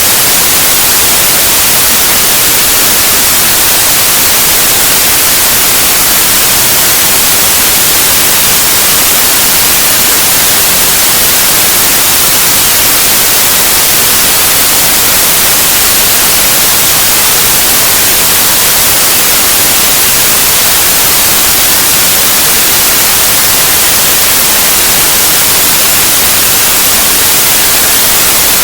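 Loud, steady white noise: an even hiss across all pitches, unchanging throughout.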